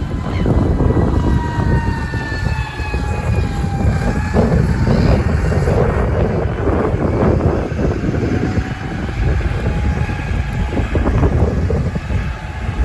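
Bus passing with its engine running and a drivetrain whine that falls slowly in pitch over the first few seconds, over a heavy low rumble.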